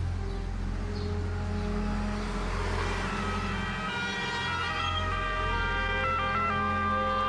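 Emergency vehicle sirens coming in about three seconds in, holding and switching between pitches, over a low sustained drone.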